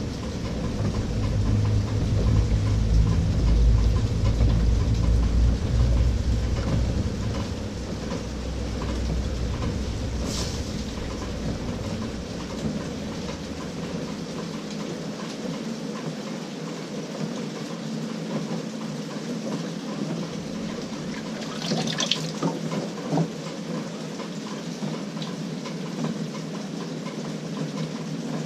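LG 18 kg top-load washing machine running a delicate cycle: water running in the tub over a low motor hum that stops about halfway through, with a couple of brief clicks.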